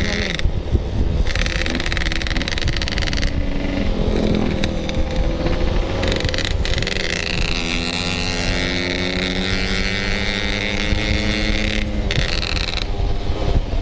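Yamaha RX-King's 135cc two-stroke single-cylinder engine running under way, its pitch climbing steadily as the bike accelerates through the second half, over a steady low rumble of wind on the microphone.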